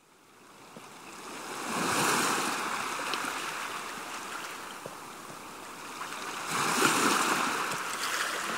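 Ocean waves washing in, fading in from silence and surging twice, a couple of seconds in and again later, each surge slowly dying back.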